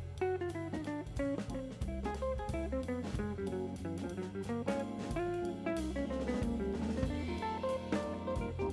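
Instrumental background music: guitar notes over a bass line and drum kit.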